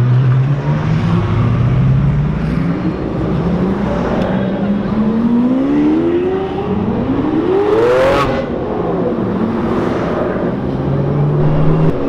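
Supercar engines in slow convoy traffic. Their notes climb as the cars accelerate, one passes close with a loud peak about eight seconds in, then its pitch falls away. A steady low engine note runs near the end.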